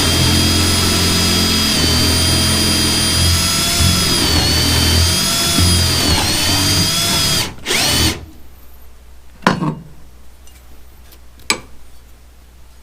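Electric drill boring a pilot hole into a wooden porch beam, its motor whine dipping in pitch now and then as the bit loads up. It stops about seven and a half seconds in after a short last burst, and two sharp knocks follow.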